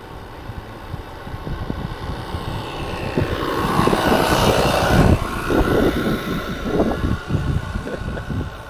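Live-steam single-cylinder model speed boat running past at speed, its engine and hull spray swelling to a peak about four to five seconds in, then fading as it runs away.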